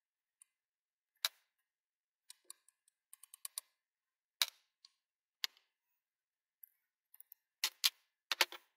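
Scattered sharp clicks and taps of small hardware: an Allen key and small steel screws knocking against a bracket as it is taken apart to free its bearing, with a quick run of clicks near the end.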